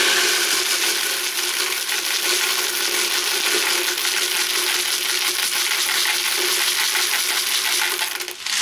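Caustic soda pearls poured from a plastic bottle into a plastic bucket: a steady, dense rattle of small pellets pattering onto the bucket and the growing pile. It tapers off near the end.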